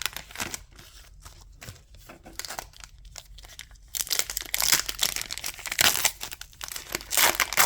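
Light clicks of cards being handled, then from about four seconds in a booster pack's foil wrapper crinkling loudly and being torn open.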